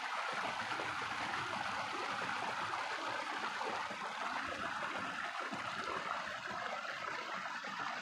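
Shallow rocky mountain stream running over rocks and small cascades in a steady rush of water.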